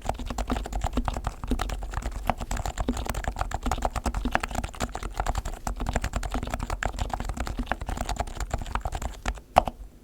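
Leopold FC660C keyboard with silenced Topre capacitive switches, fully lubricated, being typed on fast: a dense stream of soft, muted keystrokes with a deeper thud about twice a second. One louder stroke lands near the end, just before the typing stops.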